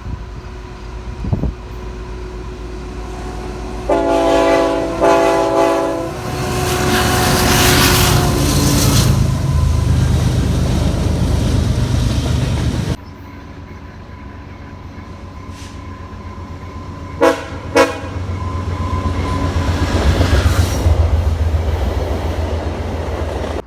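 Locomotive air horn sounding two blasts, several notes at once in a chord, then a train rumbling past on the rails. After a sudden cut, another train rumbles past and gives two short toots on its horn.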